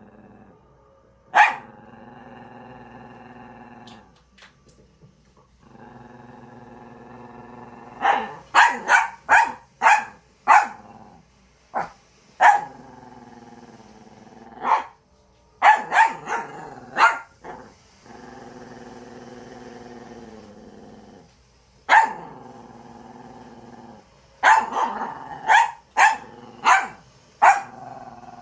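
A small dog growling in long, steady, drawn-out grumbles, broken by sharp barks: one about a second in, a quick run of several around eight to ten seconds in, more in the middle, and another run near the end.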